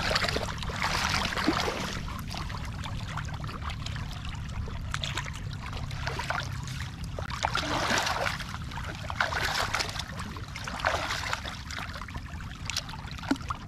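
Shallow seawater sloshing and trickling in irregular splashes as hands dig and stir in the wet sand at a mantis shrimp burrow, over a steady low rumble.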